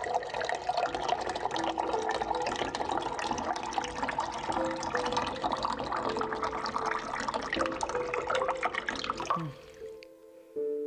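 Water gushing steadily from an open plastic tap and splashing onto the ground below, cutting off abruptly about nine seconds in.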